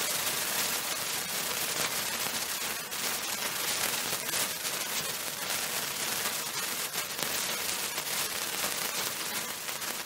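A handheld sparkler burning: a steady, dense fizzing crackle made of many tiny spark pops.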